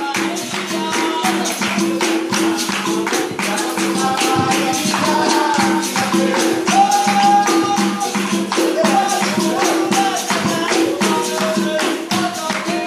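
Capoeira roda music: berimbaus, led by the low gunga, played with a steady rhythm over pandeiro and rattle percussion, with voices singing.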